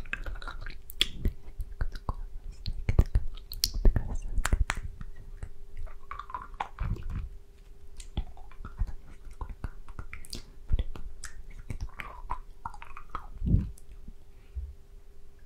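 Close-miked wet mouth sounds from licking and sucking a candy: a dense, irregular run of sharp clicks and smacks.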